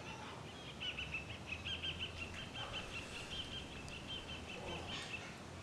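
A small bird chirping in a fast series of short, high notes, over a faint steady low hum.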